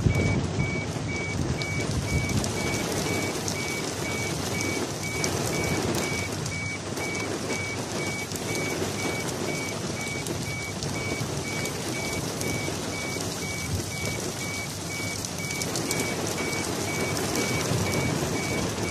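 Heavy rain pouring down, a dense steady hiss with fine pattering. Through it, a high electronic beep repeats evenly, about twice a second.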